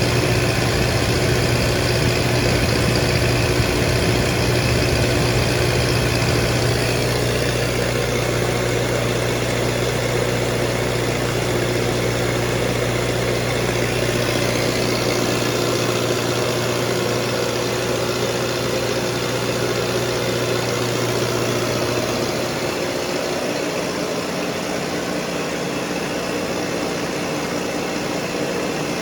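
A 30 kW Generac diesel standby generator running steadily with a deep hum; about 22 seconds in the low hum drops out and the running noise carries on slightly quieter.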